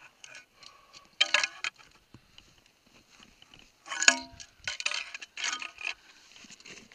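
Ice axe and metal climbing gear clinking and scraping against rock in short clattering bursts, one strike ringing briefly about four seconds in.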